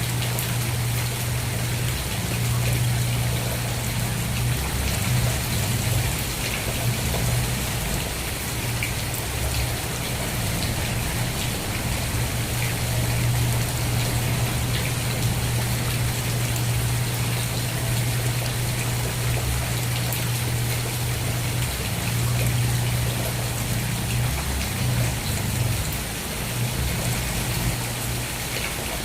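Steady rain falling, an even patter of drops with a constant low hum underneath.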